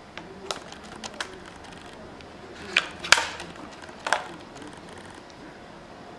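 Clear plastic router bit case being opened and handled with gloved hands: a handful of sharp plastic clicks and knocks, the loudest pair about three seconds in, as the router bit is taken out of its case.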